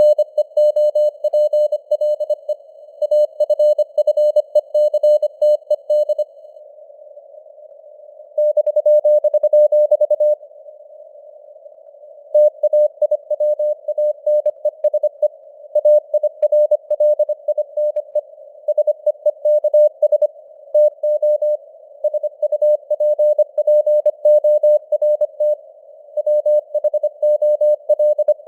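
Morse code (CW) sent at 25 words per minute: a single pure tone keyed rapidly on and off in dots and dashes, over a hiss of simulated radio band noise. The keying breaks twice for about two seconds, leaving only the noise.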